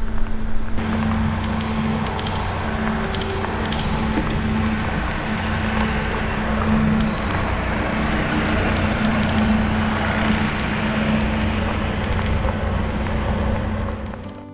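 E-bike riding along a trail: steady rolling noise from the tyres with a steady hum from its electric motor. It fades away near the end.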